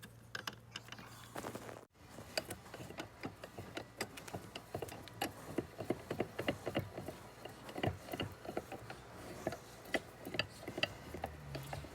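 Restored Record quick-release vice being worked, its screw and jaw mechanism giving rapid, irregular clicks and rattles.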